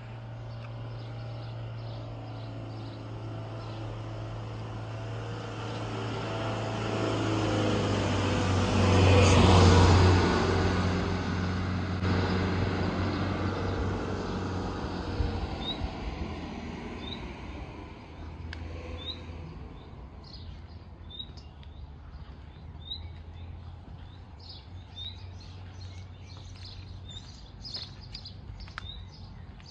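A motor vehicle drives past, its engine and tyre noise building to a peak about a third of the way in, then fading. In the second half small birds chirp repeatedly with short rising notes.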